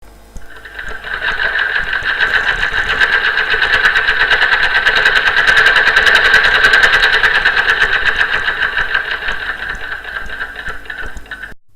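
Bernette domestic sewing machine stitching fast: a motor whine under a rapid, even chatter of needle strokes. It builds up over the first couple of seconds, eases off and stops abruptly near the end.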